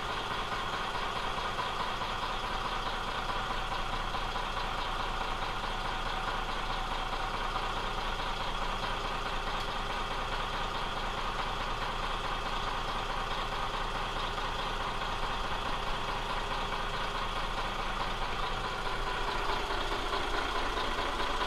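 A boat's inboard engines idling steadily at the dock.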